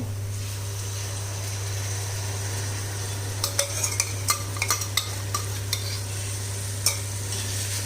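Onion, ginger-garlic and spice masala sizzling as it fries in oil in a pan, with a spoon stirring it and clicking against the pan a dozen or so times in the second half. A steady low hum runs underneath.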